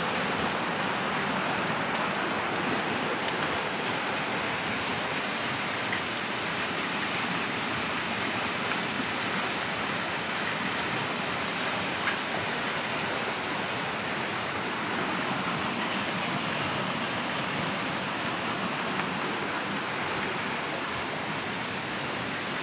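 Muddy floodwater rushing over rubble: a steady, even rush of water that eases slightly toward the end, with a small knock about halfway through.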